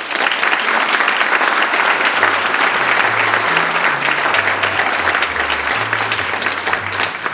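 Audience applauding, starting suddenly and holding steady. From about two seconds in, a low bass line of music steps from note to note beneath the clapping.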